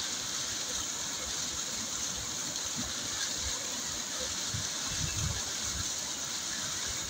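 Waterfall water falling and rushing in a steady, even wash of noise, with a few low bumps about five seconds in.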